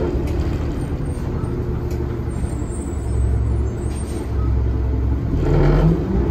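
Orion VII diesel city bus under way, heard inside the passenger cabin: a steady low engine drone and road rumble, with a brief louder swell near the end.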